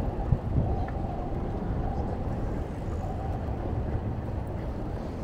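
Steady low rumble of wind on a bicycle-mounted camera microphone mixed with street traffic, with a short knock about a third of a second in.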